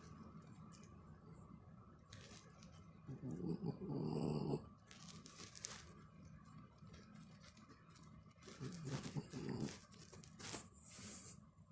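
A Corgi–Pekingese mix dog making a snore-like grumbling sound while her head is scratched, in two bouts a few seconds apart, with a few brief rustles in between.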